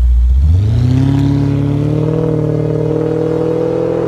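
Aston Martin Virage Volante's 6.3-litre V8 pulling away from idle through its exhaust: the low idle rumble gives way about half a second in to rising revs, which then level off and hold as the car drives off.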